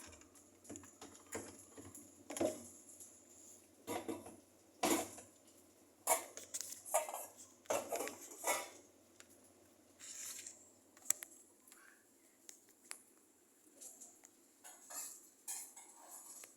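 Irregular light knocks, clicks and rustles of small hard objects being handled, a few every second and sparser in the second half.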